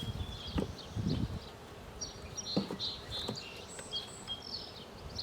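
Honeybees buzzing around a hive entrance, with a few short knocks and snaps of twigs and sticks being laid in front of it. Faint high chirps, like small birds, come in the second half.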